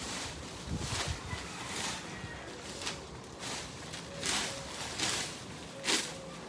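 Broom sweeping dry fallen leaves across the ground, a scratchy swish stroke about once a second.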